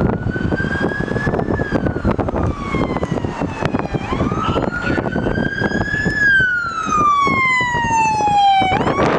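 Emergency vehicle siren on a fire department pickup truck sounding a slow wail: it rises, falls, rises again, then falls long and low before sweeping sharply back up near the end. Gusty wind rumbles on the microphone underneath.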